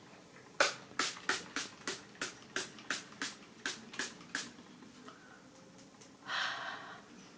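Fine-mist pump spray bottle of rose water spritzed onto the face about a dozen times in quick succession, roughly three sprays a second. A short soft hiss follows a couple of seconds after the last spray.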